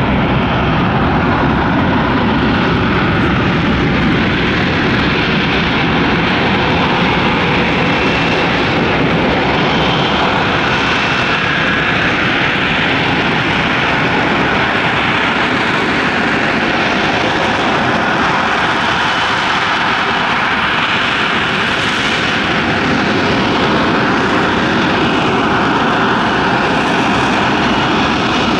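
Lockheed Martin F-35B Lightning's jet engine making a loud, steady roar that holds without a break.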